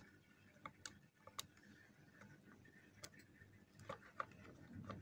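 Quiet, irregular light clicks and ticks of a small screwdriver tip picking at the clogged steam vents of a steam iron's soleplate.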